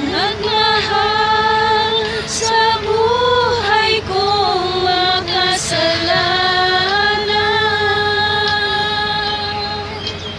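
Women singing a slow Filipino worship song, holding long notes with a slight waver.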